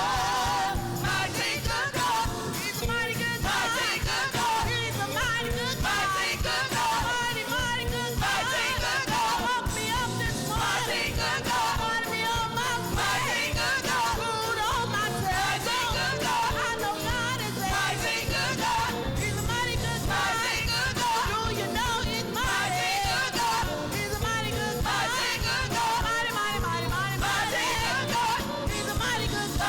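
Gospel music in a church worship service: singers with wavering, vibrato-laden voices over an instrumental band with a steady bass line.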